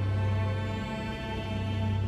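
Film score music of long held notes over a deep sustained low note that swells and eases.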